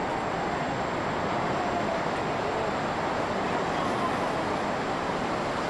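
Tsunami surge pouring over a harbour seawall: a steady, heavy rushing of water, with faint distant voices now and then.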